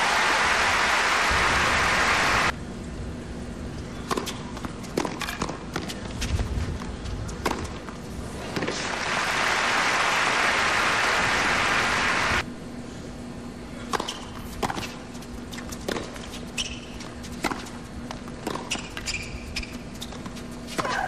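Crowd applause twice, each burst a few seconds long and cutting off sharply, between tennis points. In between, a tennis rally: sharp knocks of the ball struck by rackets and bouncing on the hard court, over a faint steady hum.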